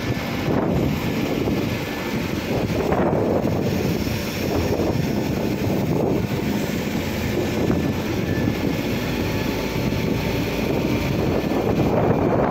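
Steady drone of a Dongyang SS3506 truck-mounted crane in operation: the truck's engine and the crane's hydraulics running while the boom is worked.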